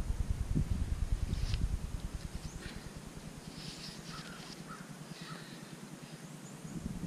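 A crow cawing several times. A low rumble of wind on the microphone dies down about two seconds in.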